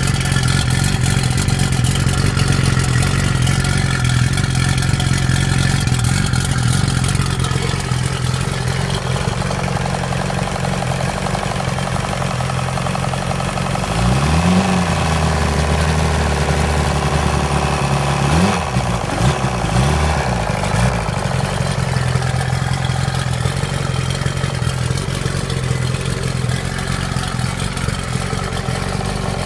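Chrysler 105 hp two-stroke outboard motor running steadily at idle. Around the middle it is revved up by hand at the throttle linkage, twice in a few seconds, then settles back to a steady idle.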